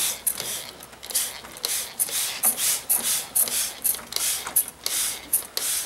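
Hand-held trigger spray bottle squirting liquid onto a glass mirror in quick repeated bursts, about two to three short hissing squirts a second.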